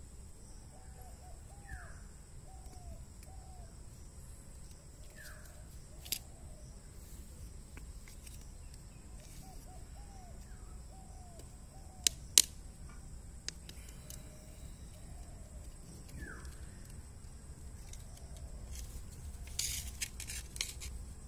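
Quiet outdoor ambience with a steady low rumble and faint bird calls now and then, short chirps and a few quick downward whistles. A few sharp taps stand out, the loudest a close pair a little past the middle, with a run of clicks near the end.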